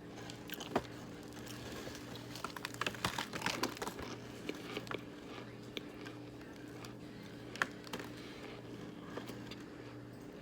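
Chunks of Argo cornstarch crackling and crunching in a run of sharp clicks, thickest about three to four seconds in, with single louder cracks near the start and the end, over a faint steady hum.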